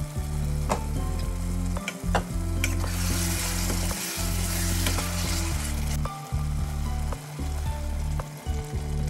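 A steel pot of taro-root gravy boiling hard with a hissing sizzle, stirred with a ladle that knocks a few times against the pot in the first couple of seconds.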